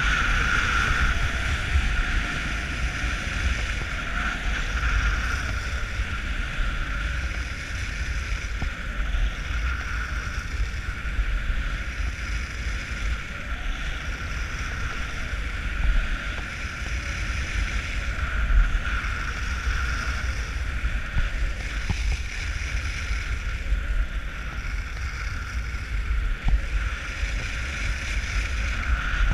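Wind buffeting the microphone of a body-worn action camera, with the steady hiss and scrape of skis running on groomed snow that swells and fades every few seconds.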